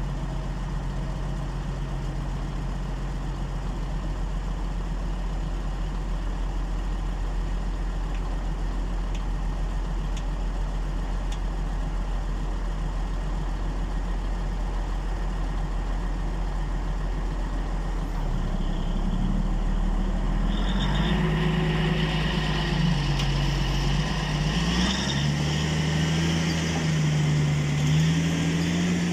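Heavy diesel engines idling steadily. A little past halfway, the wheel loader's engine revs up, its pitch rising and wavering, as it lifts the marble block.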